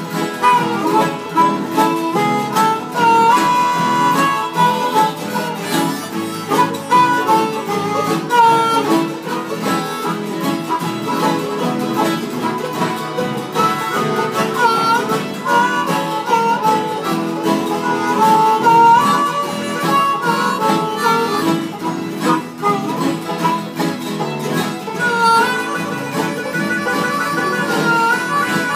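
Harmonica solo played cupped against a microphone, bending and wavering notes, over several acoustic guitars strumming the chords.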